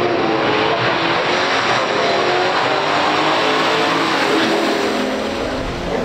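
Two big-block V8 muscle cars, a 1967 Chevrolet Impala SS 427 and a 1968 Plymouth GTX 440, accelerating hard off the line at a drag strip. The engine pitch climbs as they pull away, and the sound eases slightly near the end.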